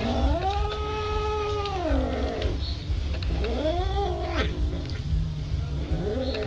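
Domestic cat yowling in long drawn-out howls, the pitch rising, holding and falling, three times with the first the longest: a warning caterwaul at rival cats over a shared steak.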